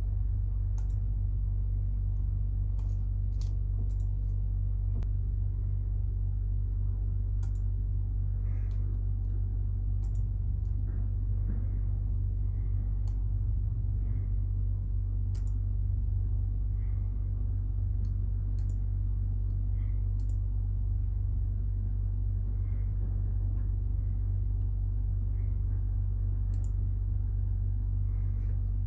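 A steady low rumble, with faint, scattered clicks of a computer mouse every second or few.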